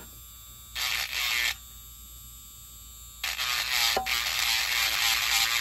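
Hardell cordless rotary tool with a sanding drum, buzzing as it sands a wet resin 3D print, in two spells: a short one about a second in and a longer one from about three seconds in.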